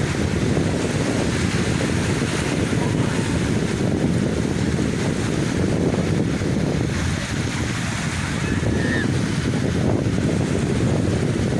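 Sea waves washing on the shore, mixed with a steady low rumble of wind buffeting the microphone.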